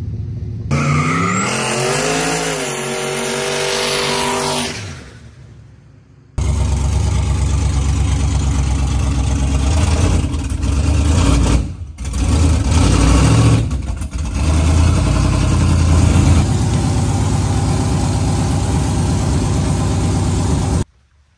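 Turbocharged LS V8 pickup engine revving hard, its pitch sweeping up and back down for a few seconds. After a short lull it runs loud and deep at low revs for most of the rest, with two brief breaks.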